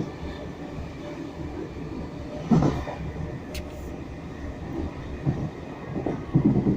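Class 313 electric multiple unit running along the line, heard from inside the carriage: a steady rumble with a few clunks, about two and a half seconds in and again near the end.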